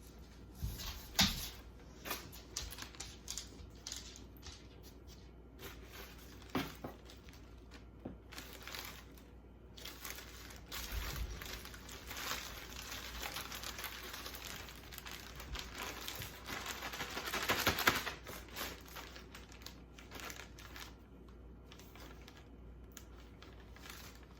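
Plastic packaging crinkling and rustling as items are handled, with scattered small clicks and a louder stretch of rustling about three quarters of the way through.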